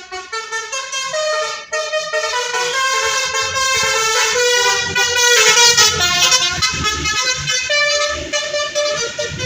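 Indonesian bus 'telolet' multi-tone horns playing a melody. Several horn tones sound together and step from note to note every fraction of a second, over a low rumble.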